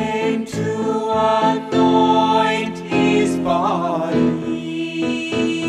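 Children's worship song about the empty tomb: singing with instrumental accompaniment, with a wavering held sung note about three and a half seconds in.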